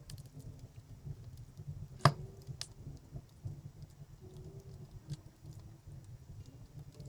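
Wood fire crackling in an outdoor fireplace: scattered small snaps over a low steady rumble, with one loud sharp pop about two seconds in and a smaller one just after.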